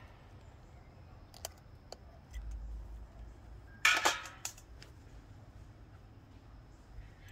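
Metal-on-metal clicks and a short clatter, loudest about four seconds in, as a brake caliper is handled and fitted over a new drilled and slotted brake rotor.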